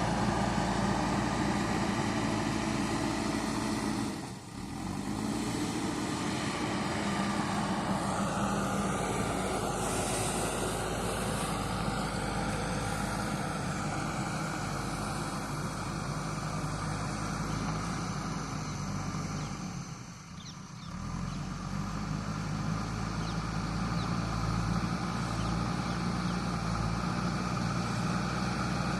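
JCB backhoe loader's diesel engine running steadily under work, with the level dipping briefly twice, about four seconds in and again about twenty seconds in.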